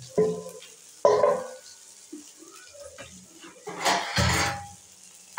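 Spatula stirring and scraping in a wok of frying Maggi noodles, with sizzling: a few separate scrapes, the loudest about four seconds in.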